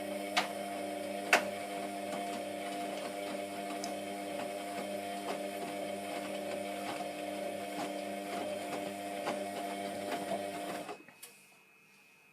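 Hotpoint Aquarius WMF720P washing machine running on a 40°C coloureds mini-load cycle: a steady motor hum with scattered clicks and knocks, stopping suddenly about eleven seconds in.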